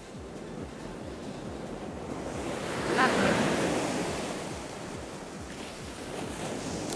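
Surf breaking on the beach: a wave swells to its loudest about three seconds in and then washes out, with wind rumbling on the microphone.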